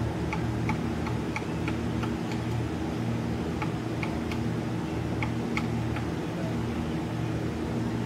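A steady low motor hum, with short sharp ticks scattered over it at irregular spacing, two or three in some seconds.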